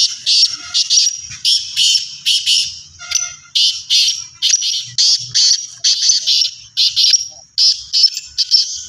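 Several caged francolins (teetar) calling together: a fast run of short, harsh, high-pitched notes, overlapping and repeated without a break.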